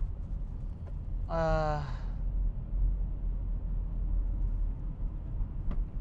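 Steady low road rumble of a car on the highway, heard inside the cabin. About a second and a half in comes one short vocal sigh of falling pitch from the driver.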